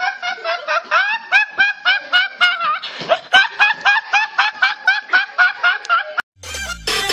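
A young man laughing hard in rapid high-pitched bursts, about four a second, each one rising in pitch. Near the end the laughter stops and a sound slides down in pitch.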